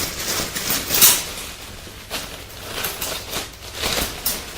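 Tools being picked up and handled, a series of short rustles, scrapes and knocks about once a second, the loudest just after a second in.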